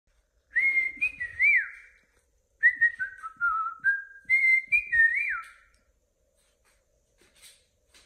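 Cockatiel whistling a tune in two phrases of clear notes, the first short, the second longer, stepping down in pitch and then back up, with quick swoops up and down.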